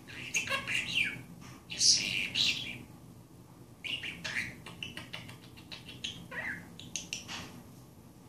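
Budgerigar warbling and chattering: quick runs of clicks, chirps and squawky notes, loudest about two seconds in, with a short break before it chatters again.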